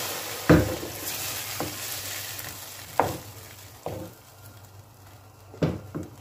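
Chicken pieces sizzling in a frying pan after a glass of water has been added. The hiss fades away over the first few seconds, and sharp knocks against the pan come every second or so.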